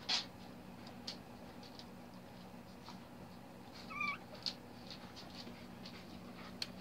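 Newborn corgi puppies squeaking while they nurse: many short, high squeaks, a louder one at the very start, and a brief mewing whine about four seconds in.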